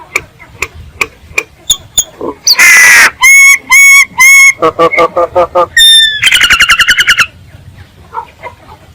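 A myna calling: a few sharp clicks, then a loud harsh screech, three strong whistled notes, a quick stuttering series and a fast rattling trill.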